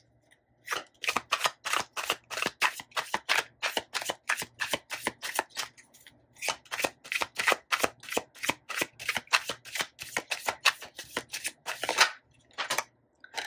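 Tarot cards being shuffled by hand: a fast run of crisp card slaps, about four a second, with a brief pause about six seconds in.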